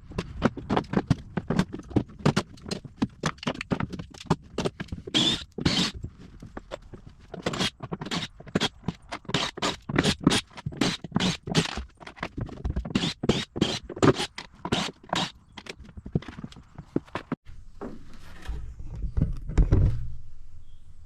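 Clamps being taken off and set down one after another: a run of sharp, irregular clicks and clacks, several a second, with heavier low thumps near the end.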